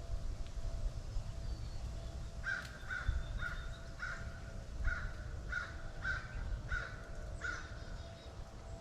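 A crow cawing about nine times in a steady series, starting a couple of seconds in, over a low rumble of outdoor background noise.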